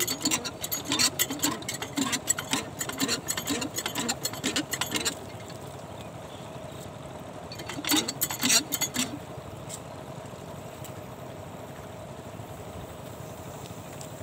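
Small diesel irrigation pump set: rhythmic mechanical knocking, about two to three strokes a second, that stops abruptly about five seconds in and returns briefly about eight seconds in, over a steady hum.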